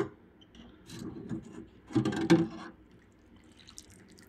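Water sloshing and dripping in the stainless tank of an ultrasonic cleaner as a carburettor is lifted out of the bath, in irregular bursts loudest about two seconds in.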